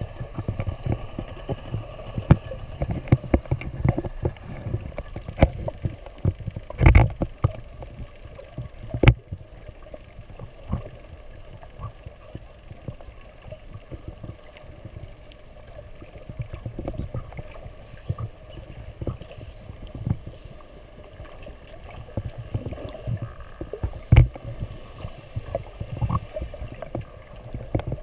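Spinner dolphins whistling underwater: many short, high whistles sweeping up and down, coming thick from about a third of the way in. Under them is the low sloshing of water around the underwater camera, with a few sharp knocks.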